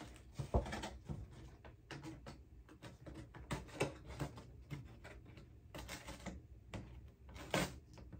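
Irregular small clicks, taps and rustles of hands working carefully at a trading card and its paper wrapping to get the card out.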